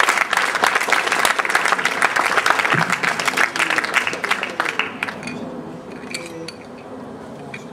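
Audience applauding after a speech, loud for about five seconds, then dying away, with a few faint voices near the end.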